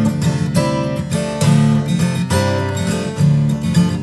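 Acoustic guitar strummed in a steady rhythm of chords, playing a song's introduction.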